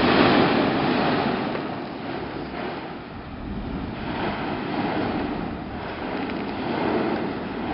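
Mount Yasur's active crater roaring in surging, surf-like waves of noise, loudest in the first second and swelling again about four and seven seconds in, with wind buffeting the microphone underneath.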